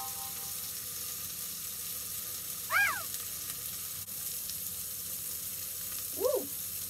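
Diced onion and jalapeño frying in olive oil in a deep pot: a steady sizzle. Two brief squeaks that rise and fall in pitch cut through it, about three seconds apart.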